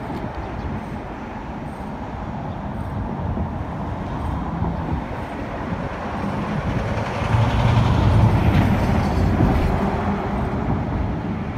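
A motor vehicle passes close by over a steady low rumble of traffic. Its engine hum builds to its loudest about eight seconds in, then fades.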